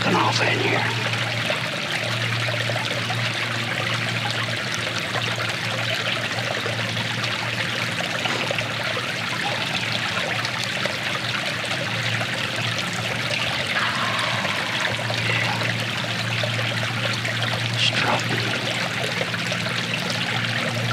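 Small creek trickling and running steadily over logs and debris.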